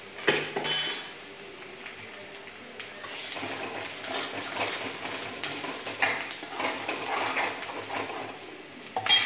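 A metal spoon stirring thick onion masala in an aluminium kadai, scraping against the pan in repeated strokes. There is a ringing metallic clink under a second in and a loud clank of the spoon on the pan near the end.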